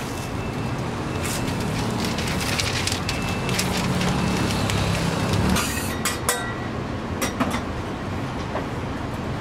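Steady sizzling from a flat-top griddle over busy street-stall background noise, with a paper toast wrapper crinkling and a few sharp clicks and crackles, several of them coming past the middle.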